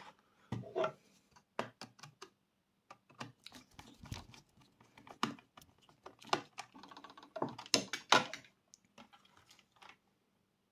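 Irregular small clicks, taps and brief scraping as hands work thin intercom wires and the plastic intercom handset and its terminals.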